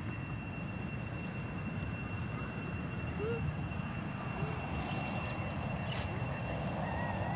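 A few short, faint rising-and-falling squeaks from macaques, over a steady low rumble and a thin, steady high-pitched whine.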